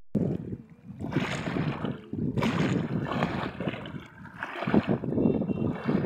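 Small waves lapping and splashing at the water's edge in repeated surges, about one every second or so.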